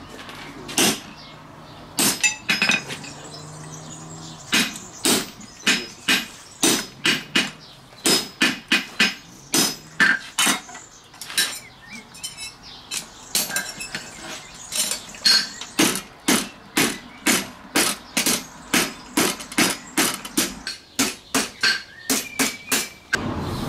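Farrier's hammer striking a red-hot steel horseshoe on a JHM anvil, shaping the shoe: sharp metallic blows with a light ring, about two a second, in runs broken by short pauses.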